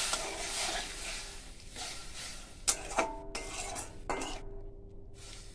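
A metal spatula stirring and scraping in a metal wok, with several sharp clinks with a short ring around the middle. Under it, the sizzle of the frying onion and spices dies down because milk has just been poured in.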